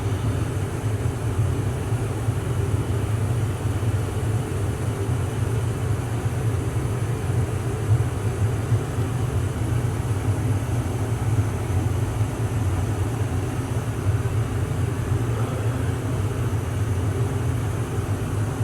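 Steady low mechanical hum, like a motor or fan running, with a faint high-pitched whine above it.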